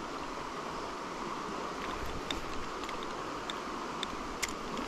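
Fast-flowing river water rushing steadily, with a few light clicks about halfway through and near the end.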